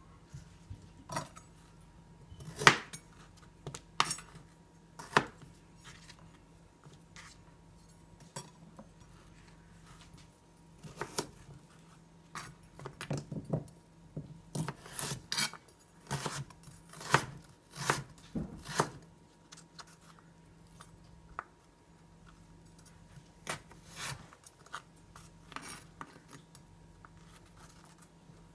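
A kitchen knife cutting a raw carrot on a cutting board: uneven sharp knocks of the blade striking the board as each slice goes through. The knocks are busiest in the middle, with quieter gaps between groups of cuts.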